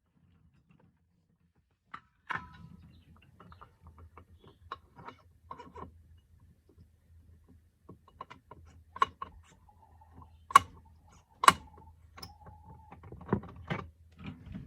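Metal parts and tools clicking and knocking as a scooter's CVT variator is taken apart, with two sharp metallic clanks a little past halfway, each followed by a short ring. A low steady hum runs underneath from about two seconds in.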